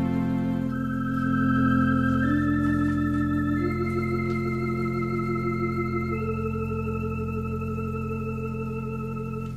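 Conn 650 electronic theatre organ playing slow sustained chords over a held bass note, the upper notes shifting every second or so. The held chord is released near the end.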